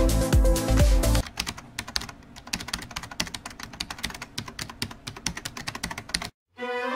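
Electronic dance music cuts off about a second in. Rapid computer-keyboard typing clicks follow for about five seconds. After a brief silence, new music begins near the end.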